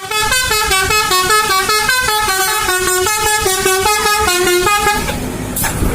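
Multi-tone 'basuri' telolet bus horn playing a rapid tune of stepped notes, several tones sounding together, for about five seconds before it stops, leaving engine and road noise.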